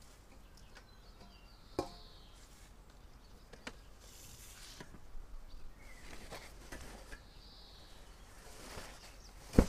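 Stainless steel bowls and a metal tray being handled and set down on a table: a few scattered sharp clinks and knocks, the loudest a single knock near the end.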